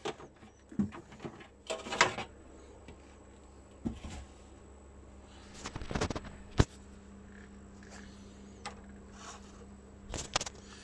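Handling noise from a turntable's plastic dust cover being lifted off and put aside: scattered knocks, clicks and rustles. A sharp click comes a little past halfway, after which a steady low hum runs on.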